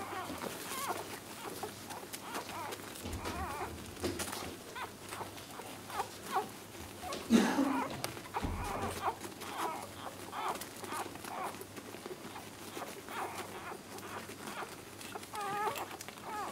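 Newborn whippet puppies nursing at their mother, making many short high squeaks and whimpers among small clicking suckling noises, with one louder cry about seven seconds in.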